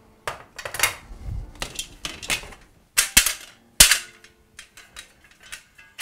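Empty spoked metal film reels clanking and clinking against each other as they are handled, a run of sharp knocks with the loudest about three and four seconds in.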